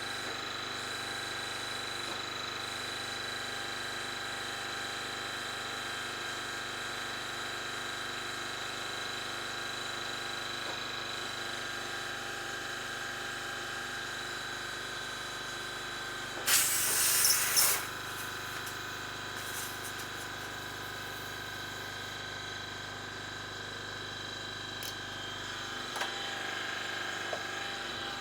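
Steady hum of running tire-shop machinery in a service van, with a fixed high whine. A loud hiss of compressed air bursts out for about a second and a half a little past the middle.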